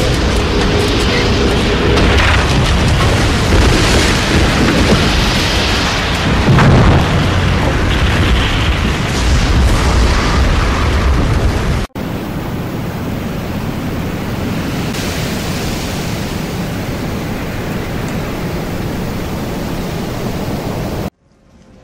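Storm wind and rumbling from a tornado: a loud rushing noise with heavy low rumbles, then after a sudden cut about halfway a steadier, quieter rushing that stops abruptly near the end.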